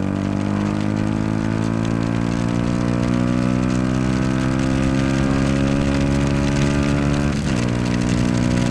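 Yamaha YZF-R125 single-cylinder engine pulling steadily, its pitch rising slowly as the bike gathers speed. Near the end it dips briefly in a gear change and runs on steadily.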